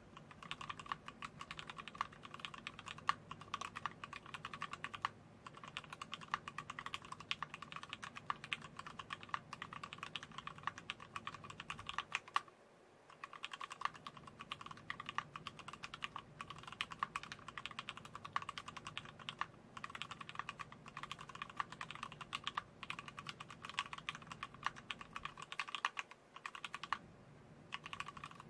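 Typing on a TX-1800 mechanical keyboard with lubricated Wyse vintage black nib linear switches on 62 g springs and a brass plate: a fast, steady run of keystroke clacks. The typing stops briefly about twelve seconds in and again near the end.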